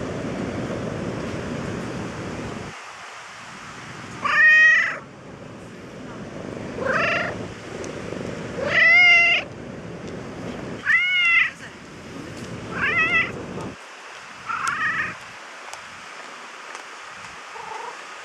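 Orange tabby cat meowing six times, about every two seconds, each meow short and arching in pitch, while it is being petted. A low rustling noise fills the first few seconds.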